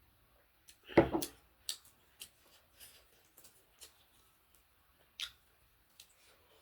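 Close-miked eating sounds: chewing with short, sharp mouth clicks scattered through, and one louder crunch about a second in.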